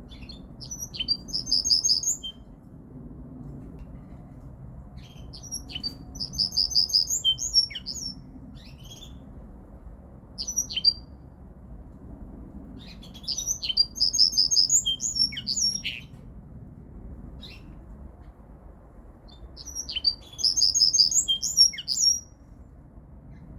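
Linnet × canary hybrid (mule) singing in four twittering phrases of rapid trills and chips, each about two to three seconds long, with a short burst between the second and third, separated by pauses of a few seconds.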